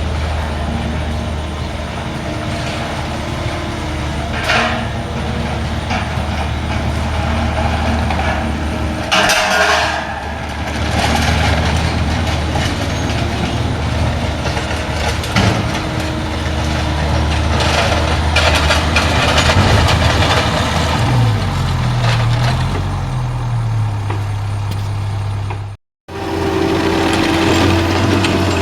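Heavy engine of work machinery running steadily at a low hum, with a few short hissing bursts and a wavering change in engine pitch later on. The sound cuts out for an instant near the end.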